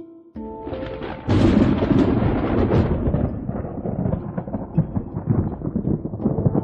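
Thunder: a sudden loud crack about a second in that rolls on as a long crackling rumble, over soft background music.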